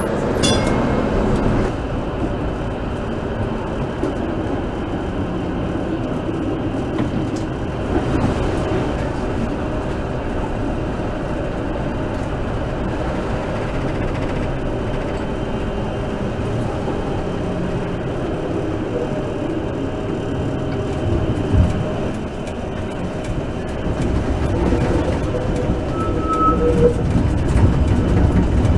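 Cab-end running noise inside a TTC streetcar travelling along street track: a steady rumble of steel wheels on the rails with a hum from the motors. A short high tone sounds near the end.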